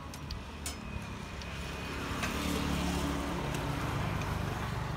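A motor vehicle's engine running close by, growing louder over the first couple of seconds as it passes.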